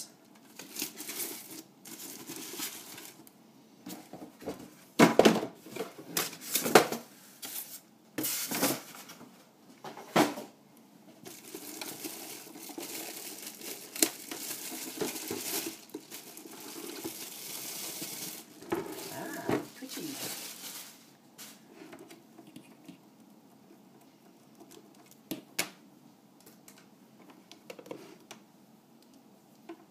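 Packaging being handled while a portable induction hotplate is unboxed: plastic and cardboard crinkling and tearing, with several sharp knocks and clatters in the first third and a long stretch of rustling in the middle.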